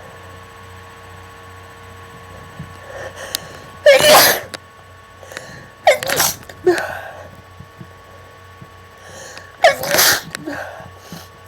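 A person sneezing three times, about four, six and ten seconds in, each sneeze led in by short breaths. The first sneeze is the loudest. The sneezing is an allergic reaction to pollen.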